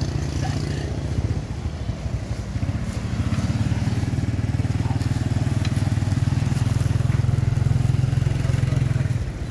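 Motorbike engine running close by, a low rapid putter that gets louder about three seconds in and drops away just before the end. Faint crackle of burning paper and rustling of a plastic bag under it.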